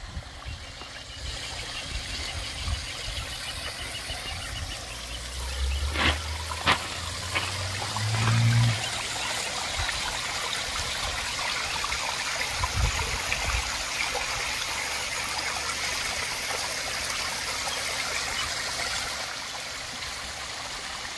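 Garden koi pond waterfall: water trickling and splashing down stacked-stone cascades into the pond in a steady rush. A few sharp knocks and a brief low rumble come about six to nine seconds in.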